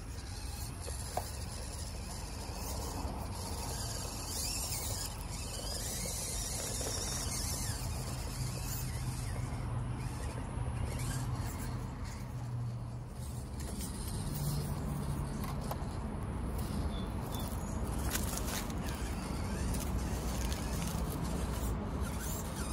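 Small 1/24-scale RC crawler running, its electric motor and gears whirring while the tires scrape and squeal over the ground.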